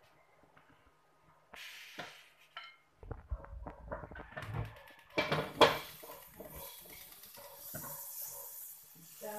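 Aluminium wok and metal utensils clattering as the wok is emptied of its boiling water and set back on a gas stove, with one loud metal clank a little past the middle. A steady hiss follows near the end.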